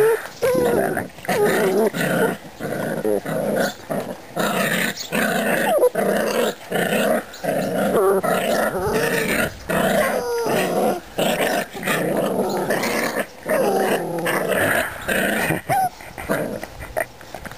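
Puppies play-growling, a near-continuous string of rough growls that waver in pitch, broken by short pauses about once a second.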